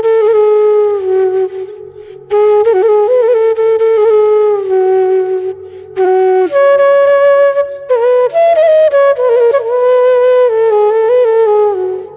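Flute playing an ornamented melody in short phrases with pitch bends, over a faint low accompaniment: a ringtone tune.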